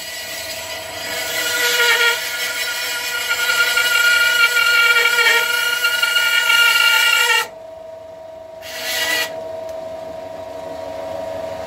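Bandsaw fitted with a narrow blade cutting the curves of a solid-wood guitar body, a steady whine under a loud rasping cut. About seven and a half seconds in the cut stops suddenly and the saw runs on without load, with one short bite into the wood a second or so later.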